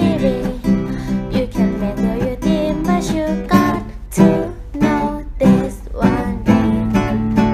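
A song with strummed acoustic guitar in a steady rhythm and a sung vocal.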